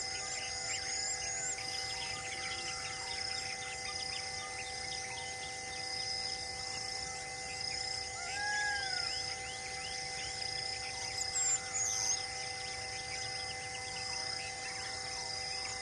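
Forest ambience: a steady insect drone with birds chirping all around, one high chirp repeating about once a second and a whistled call about halfway through.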